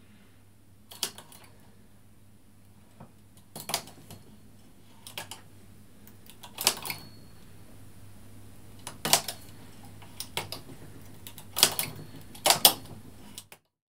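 Sharp metallic clicks of a hand tool and latch needles on a Brother 950i knitting machine's needle bed as stitches are cast off by hand behind the gate pegs. The clicks are single and irregular, every second or two, over a faint steady hum.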